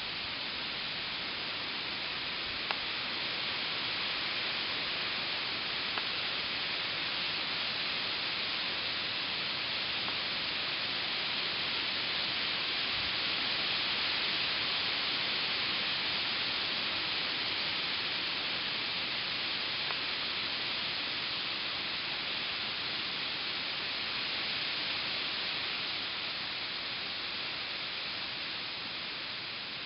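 Steady hissing scratch of dogs digging fast with their front paws in loose dirt and dry leaves.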